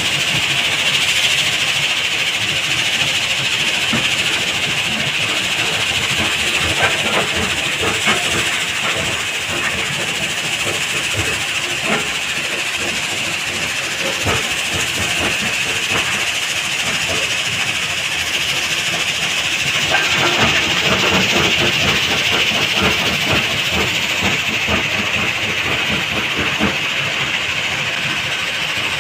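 Heavy quarry machinery at work: a stone crusher and excavator running steadily with a constant hiss and frequent knocks and clatter of rock, a little louder in the second half.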